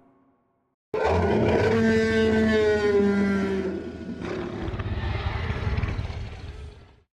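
Tyrannosaurus rex roar sound effect: one long roar that starts abruptly about a second in, its pitched middle sinking slightly, then turning rougher and breathier before it fades and cuts off near the end.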